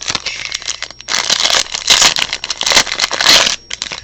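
Plastic wrapping on a box of trading cards crinkling and tearing as it is opened, in rough, noisy bursts that are loudest from about a second in until near the end.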